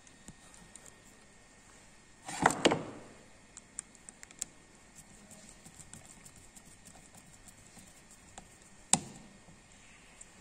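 Handling noise as the wires are screwed into a Schuko plug's terminals: scattered light clicks of the screwdriver and plastic plug parts, a louder clatter about two and a half seconds in, and one sharp click near the end.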